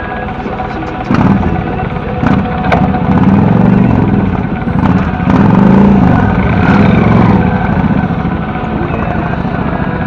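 Motorcycle engine running at idle, then revved up and let fall back several times from about a second in, easing back toward idle near the end.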